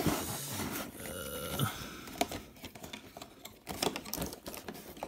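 Irregular small clicks, scratches and rustles of toy packaging being handled as the wire twist ties holding a toy in its cardboard box are untwisted.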